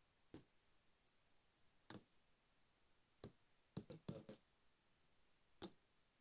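Near silence broken by faint, scattered clicks from a computer keyboard and mouse being worked, with a quick run of four about four seconds in.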